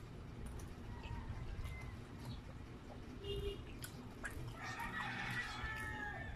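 A rooster crows once: a long call starting about two thirds of the way in and falling in pitch at its end. Short clicks of eating come close to the microphone.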